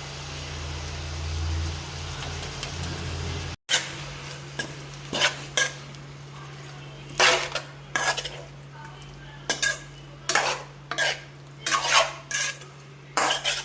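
Metal spoon stirring chicken and ground masala paste in a cooking pot, clinking and scraping against the pot in a quick, irregular run of strikes, with a light sizzle underneath. A low hum in the first few seconds stops with a short break before the scraping starts.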